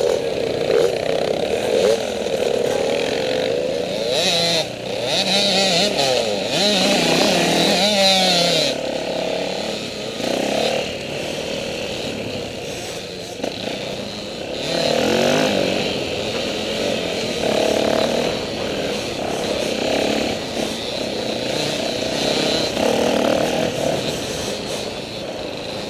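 Dirt bike engine running along a trail, its revs rising and falling with the throttle, heard close up from the rider's helmet camera. It eases off for a few seconds partway through.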